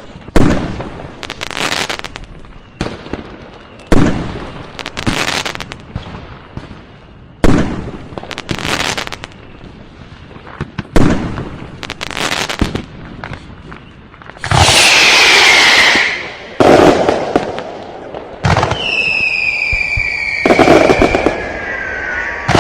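Fireworks and firecrackers going off: single loud bangs about every three and a half seconds, each trailing into crackling. About two-thirds of the way in they give way to a dense continuous barrage with falling whistles.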